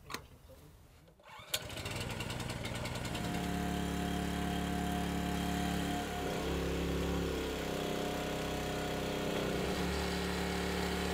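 Engine of a hydraulic log splitter running steadily. It comes in about a second and a half in, after a faint stretch with a couple of clicks, and its pitch wavers briefly a little past the middle.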